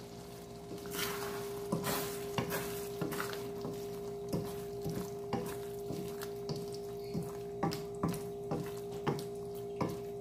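A utensil stirring a thick, creamy chicken pie filling in a stainless steel wok, scraping and knocking against the metal pan about twice a second while the sauce is worked until it thickens. A steady faint hum runs underneath.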